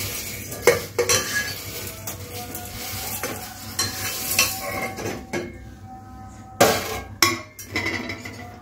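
A metal plate clinking and knocking against the rim of an aluminium pot as dry vermicelli is pushed off it by hand into the water, with a rustle of the strands. There are a few sharp knocks about a second in and again about two-thirds of the way through.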